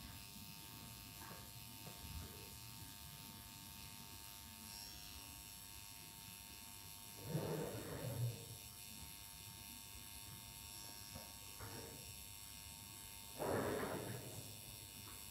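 Permanent makeup pen machine buzzing faintly and steadily as its needle works along the lower lash line, opening the skin before any pigment goes in. Two short, louder noises come about halfway through and near the end.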